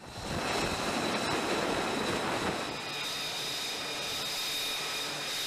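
F-35C's Pratt & Whitney F135 jet engine running on a carrier flight deck. A dense rush of noise for the first few seconds gives way, about three seconds in, to a steadier run with a high-pitched whine.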